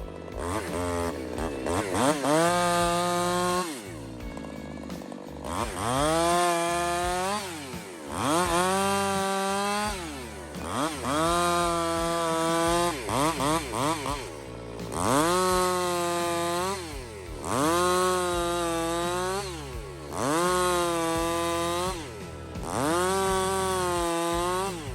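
Muffler-modded Husqvarna 359 two-stroke chainsaw cutting through oak logs. The engine revs up to full throttle, holds for a second or two through each cut, then drops back to idle, about ten times in a row.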